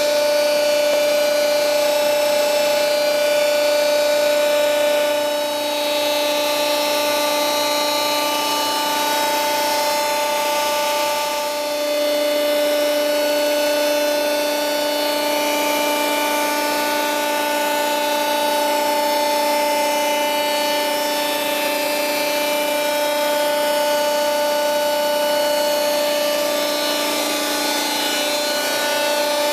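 Alpha 60-ton hydraulic compacting press with its hydraulic pump running: a steady motor-and-pump whine with several pitched tones over a hum.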